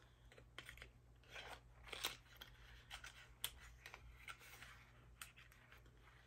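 Faint handling noises: soft, scattered clicks and rustles as a paper product card and a lip liner pencil are handled, over a low steady room hum.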